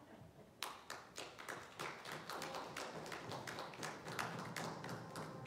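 Scattered hand clapping from a small audience, starting about half a second in and filling out into a light, uneven round of applause.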